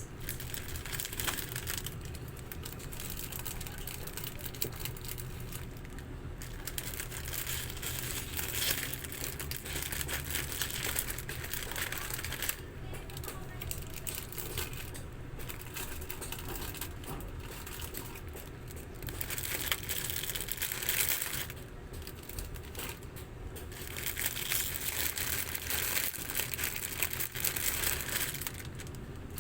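Plastic packaging crinkling and rustling as goods are handled and unpacked, louder in several stretches.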